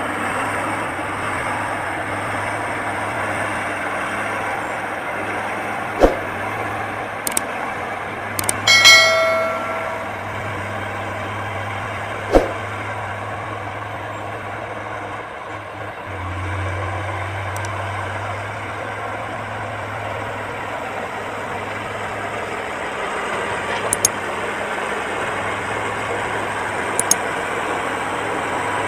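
Diesel engine of heavy earthmoving machinery (excavator or bulldozer) running steadily under work. Two sharp knocks and a ringing metallic clang about nine seconds in stand out above it.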